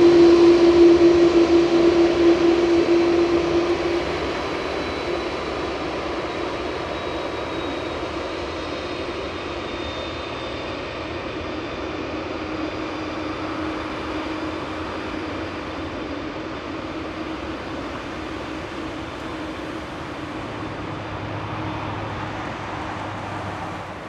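An Airbus A330-300 airliner's turbofan engines running as it rolls out on the runway after landing. The engines are loud with a strong steady hum at first, then drop about four seconds in to a quieter, steady idle with a faint high whine.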